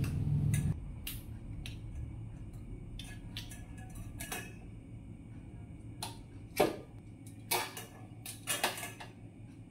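Metal kitchen tongs clicking and scraping against a stainless-steel strainer bowl and an air fryer basket as pork hocks are lifted across. The clicks are sharp and scattered, and the louder ones come in the second half.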